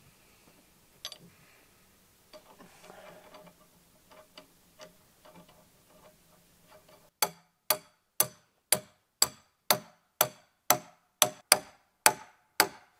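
Hammer striking the top of a long steel rod, driving it down into a log: about a dozen evenly spaced blows, roughly two a second, starting about seven seconds in. Before them, faint clicks and handling sounds.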